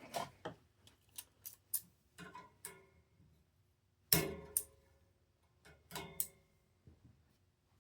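Clicks, taps and knocks from handling a vintage Westinghouse fan's body, with a louder knock about four seconds in that rings briefly.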